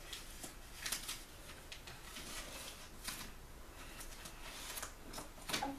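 Paper rustling as a child handles and turns the pages of a book: a few short, faint brushes, about a second and three seconds in and again near the end.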